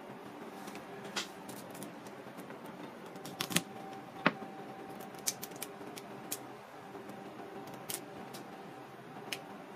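Crab leg shells being cut and snapped with a kitchen knife on a cutting board: scattered sharp clicks and cracks, some close together, over a low steady hum.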